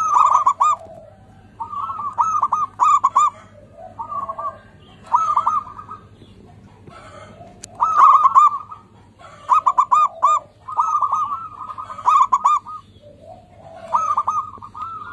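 Zebra dove (perkutut) cooing: repeated short phrases of quick, bouncing coo notes, about eight phrases with gaps of up to two seconds between them.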